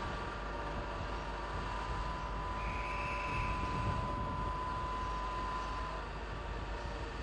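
British Rail AC electric locomotive drawing a passenger train slowly along the platform: a steady rumbling running noise with a high, steady whine that stops about six seconds in.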